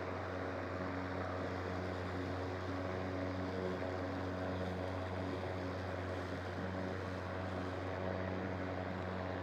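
Ryobi 40-volt 20-inch brushless battery lawn mower running steadily as it cuts grass: a quiet, even electric hum with a few steady tones over the whir of the blade.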